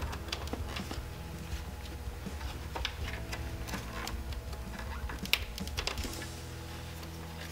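Scattered light plastic clicks and rattles of hands working the wiring connectors behind a motorcycle's gauge cluster, with one sharper click about five seconds in, over a low steady hum.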